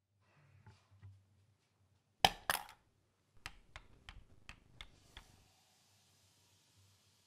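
Two sharp knocks followed by a quick run of about six light clicks and clinks of small hard objects, then a faint hiss.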